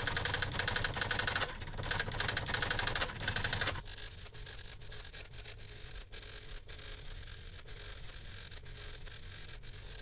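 Smith Corona Ultrasonic 350 electronic daisy-wheel typewriter printing as a computer printer: rapid runs of daisy-wheel strikes in quick bursts, each burst a line of text. About four seconds in it turns much quieter, with sparser clicking.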